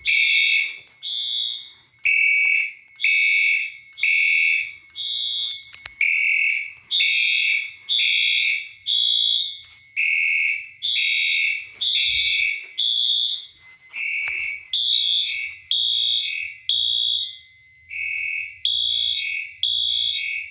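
Fire alarm sounders in alarm, with the system tripped by a smoke detector test. They give short repeated beeps at two pitches, a higher and a lower, that alternate and overlap at a few beeps a second.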